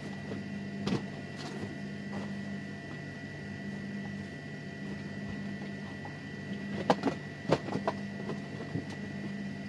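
Steady electrical hum from two stainless-steel upright commercial refrigerators, with a thin high whine over it. A few sharp knocks and rustles from items being handled in a cardboard carton, the loudest a cluster about seven to eight seconds in.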